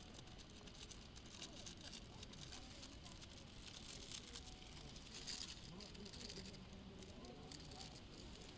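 Faint distant voices with scattered small clicks and rustles over a low background rumble.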